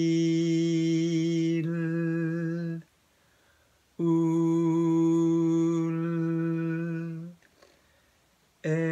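A man's voice holding a long vowel on one steady pitch, then changing colour partway through as his tongue tip rises into a sustained English L sound. This is a vowel-to-L pronunciation drill. Two such held tones of about three seconds each are separated by a short pause, and a third begins near the end.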